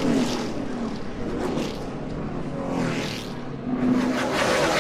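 NASCAR Sprint Cup stock cars' V8 engines at racing speed, several cars going by with the pitch rising and falling. The sound dips in the middle and grows louder again near the end.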